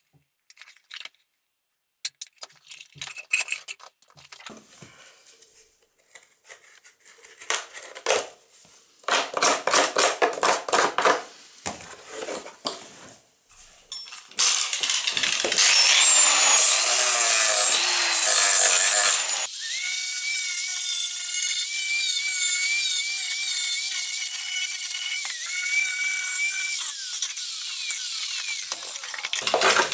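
Small handheld power tool working the plastic of a repaired air filter housing. First come scattered clicks and a few scraping strokes. About halfway in the tool runs loudly under load with a wavering whine, then runs on more steadily at a clear pitch. It stops briefly near the end and starts again.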